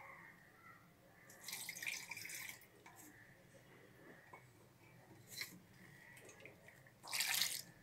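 Three short, faint wet swishes and splashes, about a second and a half in, near the middle and near the end (the last the loudest), with quiet between.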